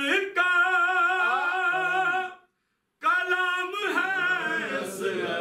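Unaccompanied man's voice singing a line of a Shia Muharram majlis recitation, holding a long wavering note. The sound cuts out completely for about half a second a little past two seconds in, then he resumes on another held note and carries on singing.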